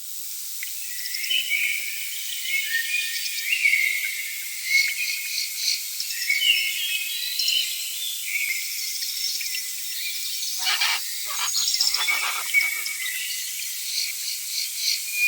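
Forest chorus of insects and birds: many overlapping high chirps, trills and fast pulsing calls, with a few fuller, lower calls about ten to thirteen seconds in.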